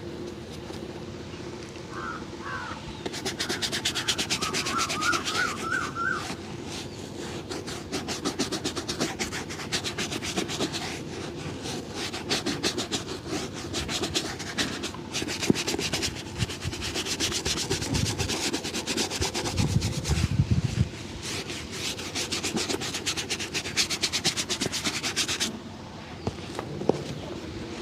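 Leather shoe being shined by hand with fast back-and-forth rubbing strokes, starting a few seconds in and stopping shortly before the end.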